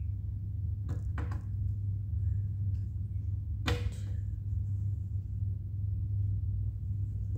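Lego Technic plastic pieces being handled and fitted, giving short sharp clicks and taps: two close together about a second in and a louder one just under four seconds in. A steady low hum runs underneath.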